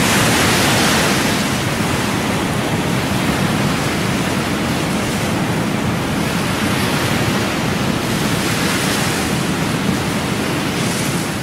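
Steady, loud rushing noise of ocean surf, with no distinct crashes or other sounds in it.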